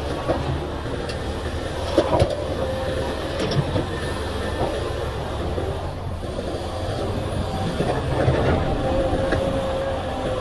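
Komatsu PC500LC excavator's diesel engine running under load with a faint steady whine as it dumps a bucket of earth into a dump truck, swings and digs. A few sharp knocks about two seconds in, then more near three and a half seconds, as the earth and rocks hit the truck bed.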